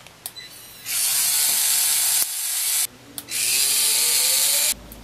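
3Doodler 3D pen's filament drive motor and gears running as it extrudes plastic: a mechanical whir in two runs of about a second and a half each, each starting just after a light click. A faint pitch rises during the second run.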